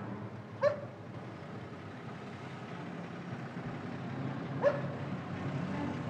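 A dog barking twice, single short barks about four seconds apart, over steady low street ambience.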